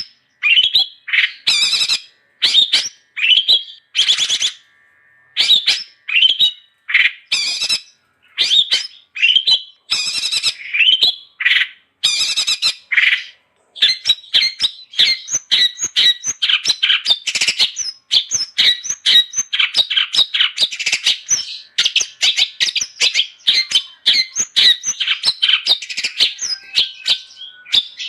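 Long-tailed shrike (cendet) singing loudly: harsh, scratchy phrases separated by short pauses, turning about halfway into a dense, rapid, unbroken chatter of notes.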